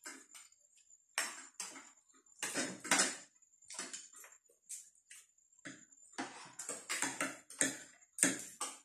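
Several people eating at a table with spoons and forks: irregular short bursts of chewing and mouth noises, with cutlery scraping and tapping on plates.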